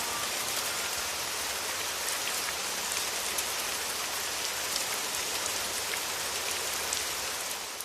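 Steady rain falling: an even hiss with scattered drop ticks, beginning to fade out at the very end.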